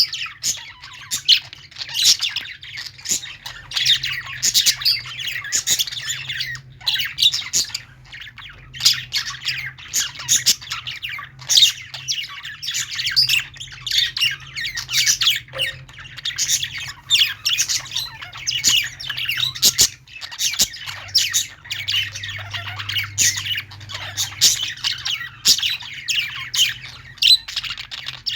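A crowd of caged small parrots, budgerigars and lovebirds, chirping and squawking at once in dense, overlapping short calls with no pause.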